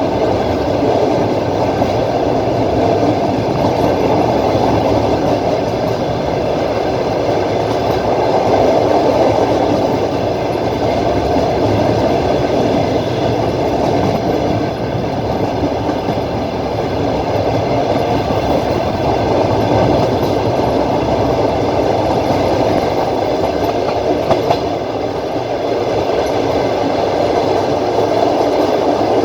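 Passenger train running on the rails, heard from inside the carriage by the window: a steady, continuous noise of wheels on track.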